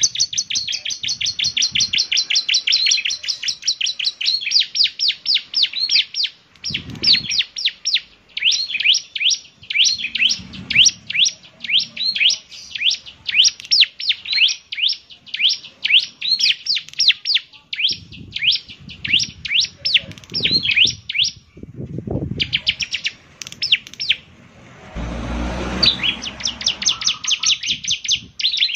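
Bar-winged prinia (ciblek semi) singing: long, fast runs of sharp, high chirps repeated many times a second, broken by a few short pauses. Low rustles and knocks sound between some phrases.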